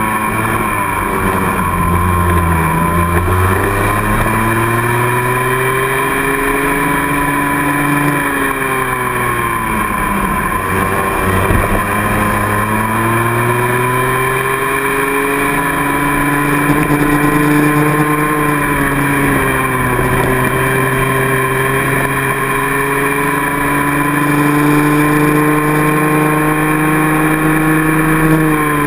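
Racing kart engine heard onboard, running hard through a lap. Its pitch drops sharply about three times as the kart slows for corners, then climbs steadily each time as it accelerates down the straights.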